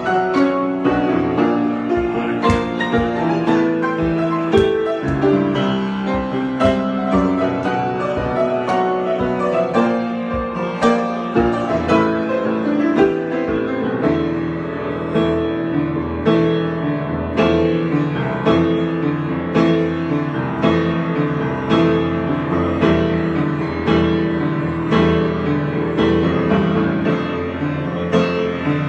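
Solo piano improvisation, with chords and melody played continuously. In the second half it settles into an even pulse of chords.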